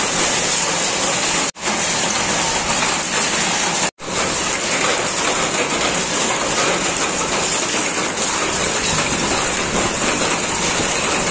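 Heavy rain pouring down steadily, with two very short dropouts about one and a half and four seconds in.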